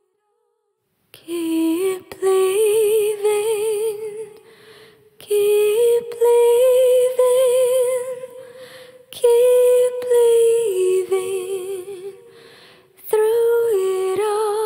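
Background music: a wordless sung or hummed melody with a wavering vibrato, in four phrases of about four seconds each, starting about a second in.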